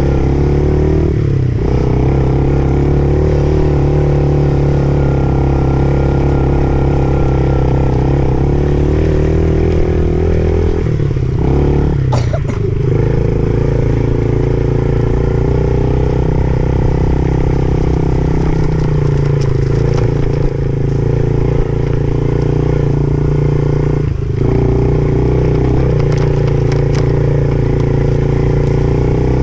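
Dirt bike engine running steadily as the bike rides a leafy dirt trail. The engine note drops briefly about a second and a half in, again around eleven to twelve seconds, and once more near twenty-four seconds.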